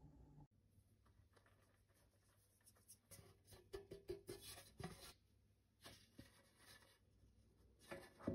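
Flour being shaken around inside a dark metal loaf pan to coat it: soft, gritty rustling with light taps as the pan is tilted and knocked against the hand, and a sharper tap near the end.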